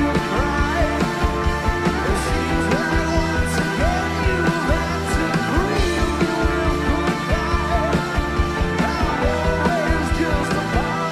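Live rock band playing a loud, full passage with a steady beat, a voice singing over it.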